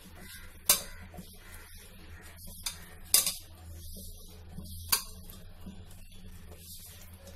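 A hand mixing masala-coated fish in a stainless steel bowl, with three sharp clinks against the steel bowl.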